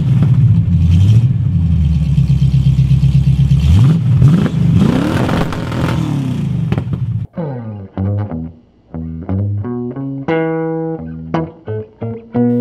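Pontiac Firebird's V8 engine running, revving up and back down about four to six seconds in. It cuts off abruptly at about seven seconds, and plucked guitar music follows.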